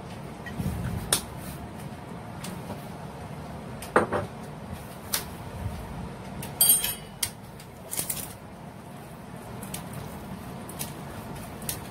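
Kitchen handling sounds: separate sharp knocks of bottles and utensils set down on a stone countertop, the loudest about four seconds in, and a short metallic clatter just before the middle as metal tongs are picked up. Near the end the tongs toss sliced raw beef in a ceramic bowl.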